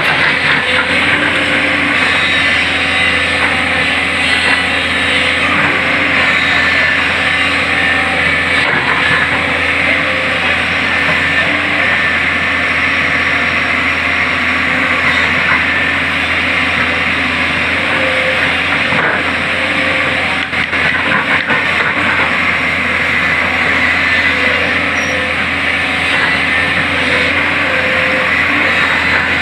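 Backhoe loader's diesel engine running steadily, with a continuous engine drone.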